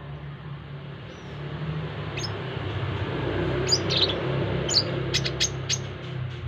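Brown-throated sunbird giving a quick series of short, sharp, high chirps, bunched in the second half. Under them runs a steady low rumble of roadside traffic, which swells in the middle.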